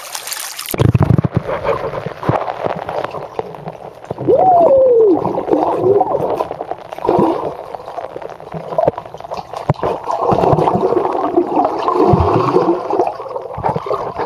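Muffled underwater sound picked up by a submerged camera in a swimming pool: a splash as it goes under, then steady gurgling and bubbling water as a swimmer moves close by. About four seconds in there is one muffled gliding tone that rises and then falls.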